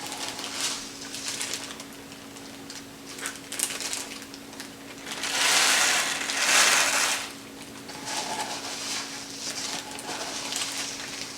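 Reused plastic bag rustling and crinkling as dry breakfast ingredients are poured and packed into it, loudest in two surges about halfway through. A faint steady hum runs underneath.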